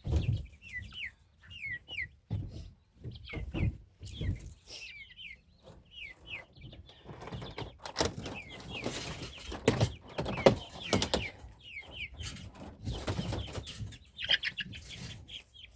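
Baby chicks peeping repeatedly in short falling chirps, with rustling and knocks of things being handled among them.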